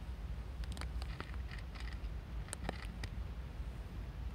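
Calico cat crunching dry kibble: a run of short, sharp crunches that stops about three seconds in, over a steady low rumble.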